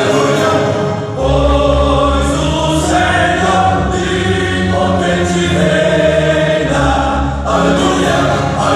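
Gospel vocal quartets singing together in close harmony, holding long chords that change every few seconds, with a deep bass part coming in about a second in.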